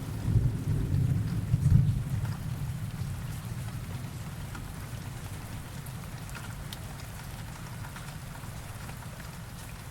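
Rain falling steadily, with the tail of a low thunder rumble rolling off over the first few seconds. After that only the rain is left, with scattered drips.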